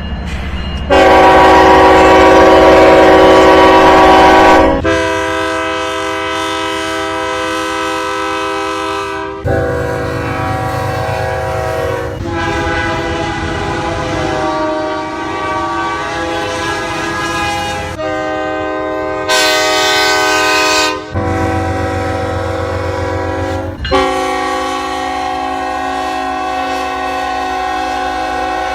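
Train air horns sounding long, steady multi-note chords in a string of separate blasts, each cutting off abruptly and giving way to a different chord. The loudest blast comes about a second in and lasts about four seconds.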